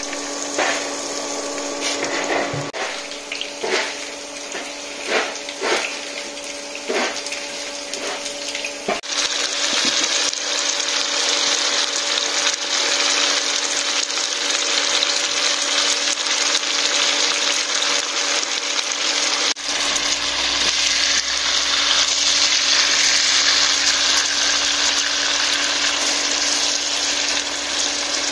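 Water running, over a steady motor hum, with scattered clicks and knocks in the first several seconds; about nine seconds in the rush of water gets louder and fuller.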